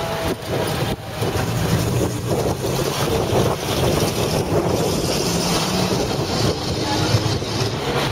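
WWII-era US Army six-wheeled trucks driving slowly past close by, their engines running steadily, with wind rumbling on the microphone.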